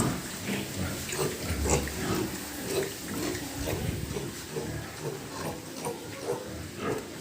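Pigs grunting and squealing in a quick, irregular run of short calls.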